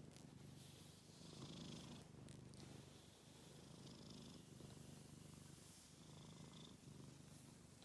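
Domestic tabby cat purring faintly and steadily, a low continuous pulsing with a couple of brief dips between breaths.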